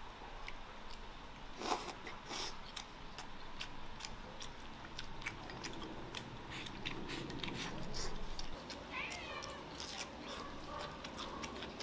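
Chopsticks clicking against a rice bowl and a person chewing and slurping mouthfuls of rice with braised pork belly, with a cat meowing about nine seconds in.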